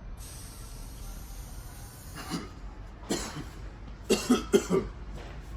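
A person coughing: single coughs about two and three seconds in, then three quick, louder coughs just after four seconds.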